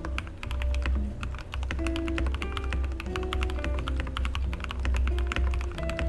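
Continuous fast typing on a tape-modded Royal Kludge RK100 mechanical keyboard with stock red linear switches: a dense stream of keystrokes, with background music underneath.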